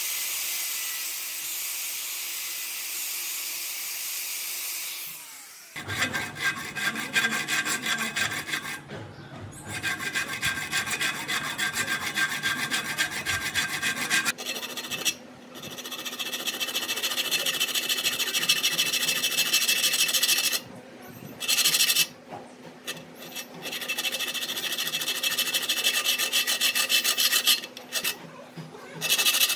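An angle grinder runs against the steel teeth of a pipe-wrench jaw held in a vise as a steady hiss, then dies away about five seconds in. After that, a hand file rasps back and forth across the jaw's teeth in long runs of strokes broken by short pauses.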